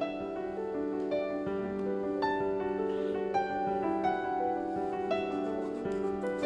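Background music: a slow, gentle instrumental of held keyboard-like notes that change every half second or so.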